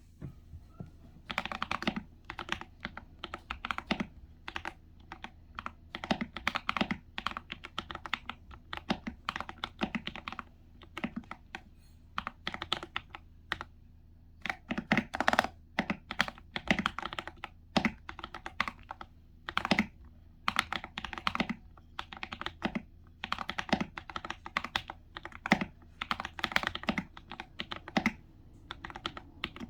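Typing on an Anne Pro mechanical keyboard with tactile Holy Panda switches: quick runs of keystrokes broken by short pauses.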